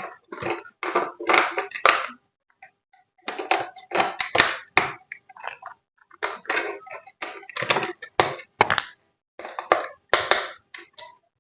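Toy packaging being handled and opened: short bursts of crinkling and rustling with a few thunks, separated by brief silences.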